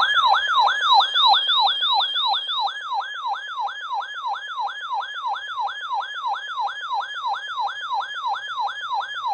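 Electronic siren-style alert tone from a weather alert radio: a loud, fast-repeating falling sweep, about three sweeps a second, sounding as the alarm that announces an incoming river flood warning.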